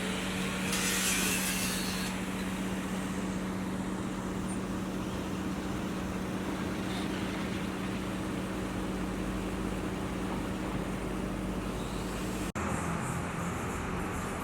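Steady engine hum over a wash of traffic noise, with a brief hiss about a second in; the sound cuts off abruptly and changes near the end.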